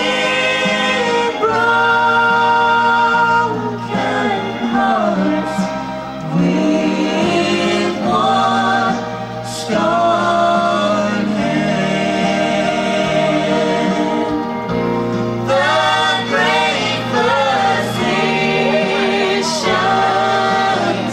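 Gospel trio of a man and two women singing into microphones in close harmony, holding long notes with short breaks between phrases.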